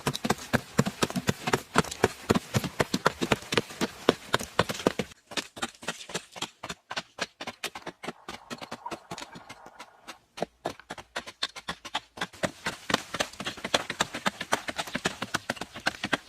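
Rapid, uneven series of sharp knocks and taps, several a second, with a short let-up about five seconds in and another around ten seconds.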